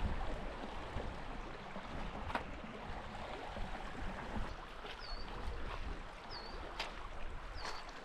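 A small stream flowing and rippling steadily. In the second half, a bird gives three short high chirps, and a few sharp clicks sound now and then.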